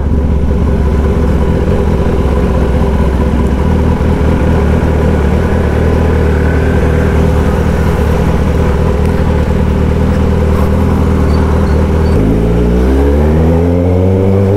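Kawasaki ZX-10R's inline-four engine with an SC-Project exhaust, running loud at a steady pitch while riding, then revving up with a smoothly rising pitch in the last couple of seconds as the bike accelerates.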